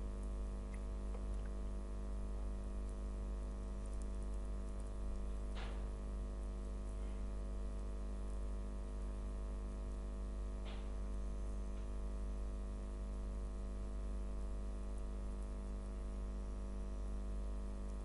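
Steady electrical hum with many overtones over a low background hiss, with two faint clicks about five seconds apart.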